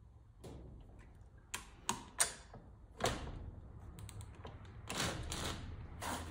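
Socket wrench ratcheting in short runs of sharp clicks while a clutch pressure-plate bolt is tightened. The wrench is a click-type torque wrench being brought up to torque. The clicks are sparse at first and come thicker in the last second or two.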